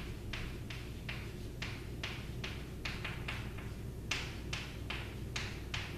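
Chalk writing on a blackboard: a quick series of short taps and scratches, about two to three strokes a second, as letters are written out.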